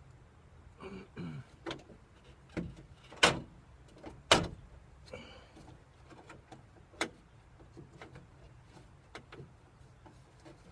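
Scattered metal clicks and knocks from a door latch linkage being worked on by hand, with two loud sharp knocks about a second apart in the first half. The small clips are being snapped back onto the latch connecting rod inside the door of a 1969 VW bus.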